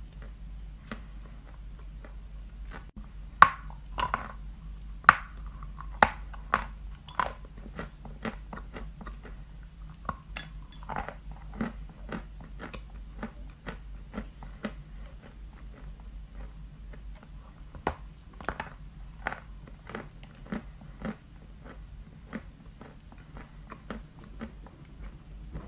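Pieces of white chalk being bitten and chewed up close, with crisp crunches throughout. The sharpest, loudest bites come a few seconds in, then lighter crunching chews carry on.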